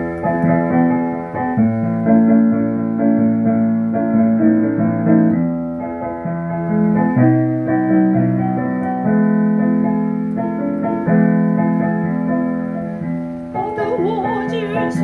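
Keyboard playing a slow gospel-song introduction in sustained chords over a moving bass line; near the end a voice comes in singing with a wavering vibrato.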